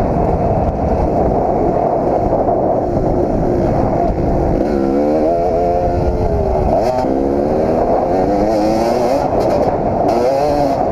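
Kawasaki KX250 two-stroke motocross engine being ridden hard, its pitch climbing and falling with the throttle over a heavy rush of wind and track noise. About seven seconds in, the revs drop sharply and climb straight back up.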